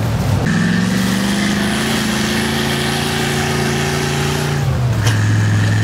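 Heavy off-road truck engine labouring under load, its revs creeping slowly upward with a steady high whine alongside. The engine note drops abruptly near the end.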